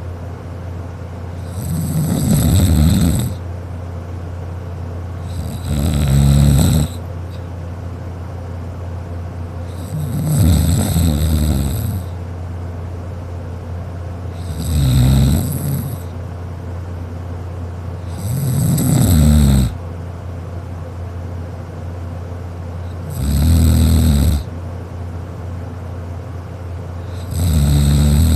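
A sleeping person snoring: seven snores, one about every four seconds, each lasting a second or two, over a steady low hum.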